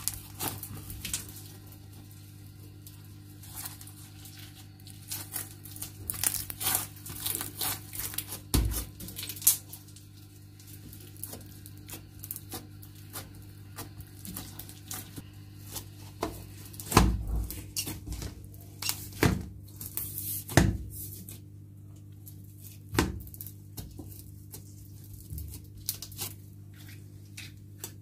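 Green slime squished, stretched and poked by hand on a stone counter, giving irregular sticky crackles and popping clicks, with a few louder pops. A steady low hum runs underneath.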